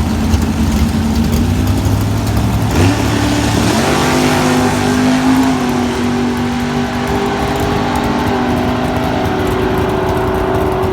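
Iron-headed W2 340 small-block Mopar V8 in a 1966 Dodge Dart drag car, loud throughout, launching about three seconds in from a low rumble, then running hard down the drag strip, its pitch stepping up before holding fairly steady.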